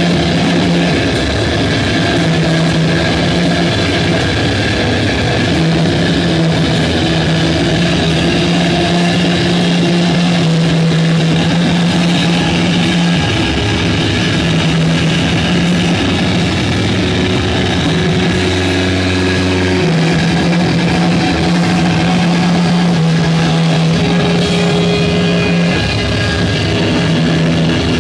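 A live rock band playing loud and dense, led by heavily distorted electric guitar. Long low notes are held and change every few seconds, over a steady wash of cymbals.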